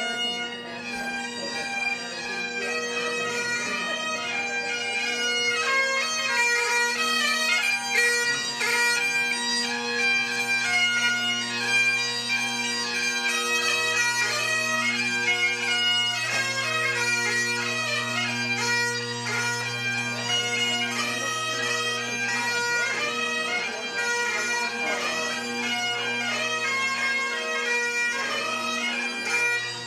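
Two Great Highland bagpipes played together: the chanters carry a melody over the steady hum of the drones.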